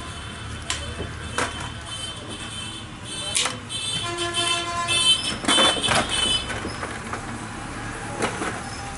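Street traffic noise with vehicle horns honking in short toots, the longest about halfway through, among scattered sharp knocks and clatters.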